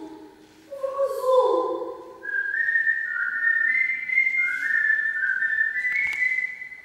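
A person whistling a slow tune of held notes that step up and down, after a short sung phrase about a second in.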